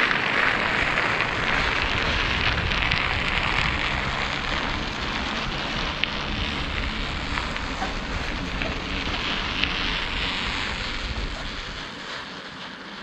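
Bicycle tyres rolling over lake ice with wind on the microphone: a steady rushing noise with a fine crackle and scattered small ticks, easing off a little near the end.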